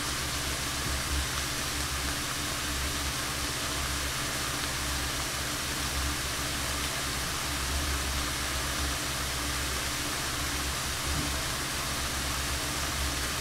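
Kimchi and ham sizzling in butter in a frying pan over high heat: a steady, even hiss with a low hum underneath.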